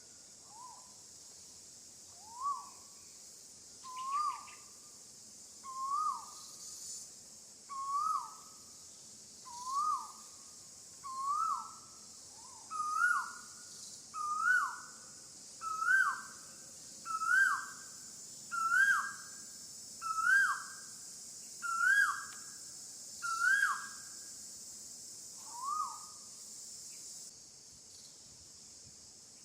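A bird calling a long series of single whistled notes, one every second and a half or so. Each note slides up and then drops. The notes climb in pitch and loudness and then tail off. A steady high insect drone runs beneath until near the end.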